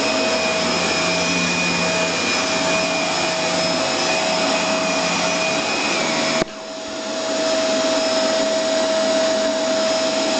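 Dyson DC24 Animal ball vacuum cleaner running while vacuuming: a steady high motor whine over a rush of airflow. About six seconds in there is a click and a sudden drop in level, which then builds back up.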